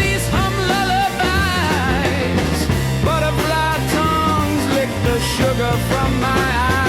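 AI-generated rock song, made with Suno: a wavering melodic lead that sounds sung, over a moving bass line and steady drums.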